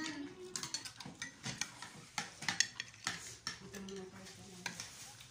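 Spoons and forks clinking and scraping against plates as people eat, a scatter of short sharp clicks throughout.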